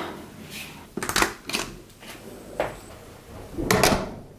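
Short handling clicks and knocks. Near the end comes a louder cluster of clicks as a metal lever door handle is pressed and the door latch releases.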